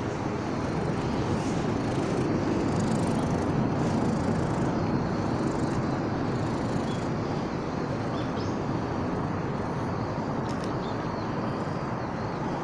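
Steady outdoor background rumble with no distinct events, swelling slightly a few seconds in.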